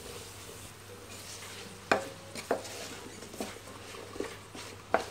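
Prawns frying gently in oil in a non-stick pan, with a low sizzle, while a wooden spoon stirs them. Several sharp knocks come from the spoon striking the pan in the second half.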